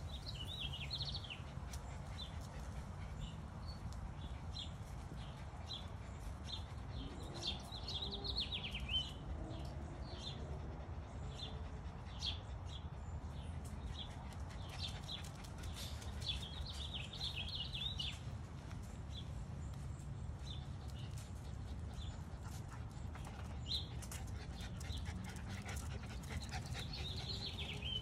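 Miniature Schnauzer puppies making small dog sounds as they play. Frequent short bird chirps come in clusters throughout, over a steady low background hum.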